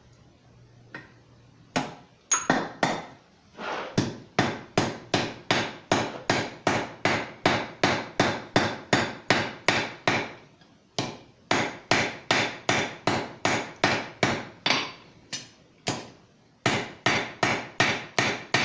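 Blacksmith's hammer striking hot steel on an anvil, a few scattered blows and then a steady run of about two to three ringing blows a second, with two short pauses. This is the hammering of a scarf forge weld closing up a steel ring.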